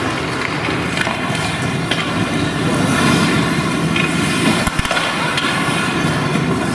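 Ice hockey play: skate blades scraping and carving on the ice, with several sharp clacks of sticks and puck and a dull thump about three quarters of the way through.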